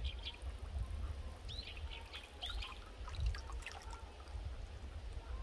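Hands sloshing and splashing in shallow muddy water while picking freshwater snails off the bottom. A few short bird chirps come and go.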